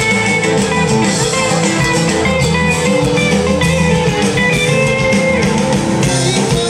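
Live band music with guitar to the fore over a steady beat.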